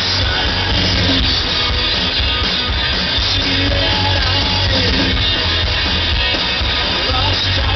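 Live rock band playing electric guitars over bass and a drum kit through a PA, heard from within the audience.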